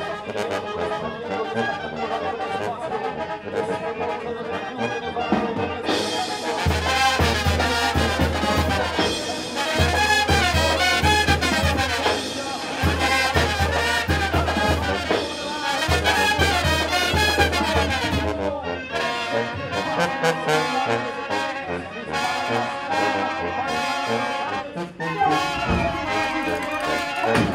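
Mexican banda brass band playing live: trumpets and trombones carrying the tune over a deep bass line.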